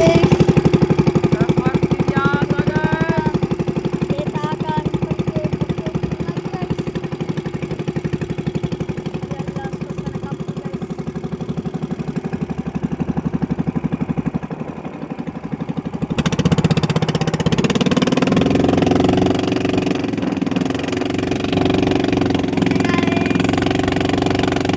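Small fishing boat's engine running steadily with a fast, even firing beat; it gets louder and fuller about two-thirds of the way through.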